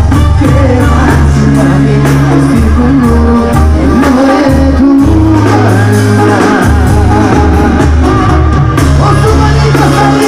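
Mexican brass banda playing live and loud: trumpets and trombones carry the melody over a sousaphone bass line and drums, with a voice singing and shouts from the crowd.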